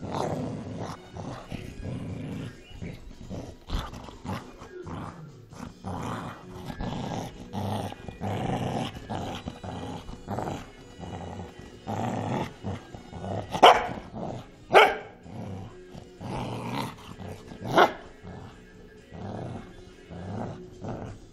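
Cocker spaniel growling almost without pause while tugging at a toy against a person's hand, with three loud, sharp barks about two-thirds of the way through.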